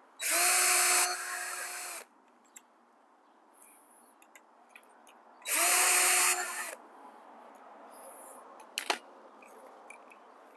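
Cordless drill with a cut-off Allen wrench as its bit, run on low speed to back out the bike's stem screws. It gives a steady motor whine for about two seconds, dropping in level partway through, then a second, shorter run about five seconds in. A single sharp click comes near the end.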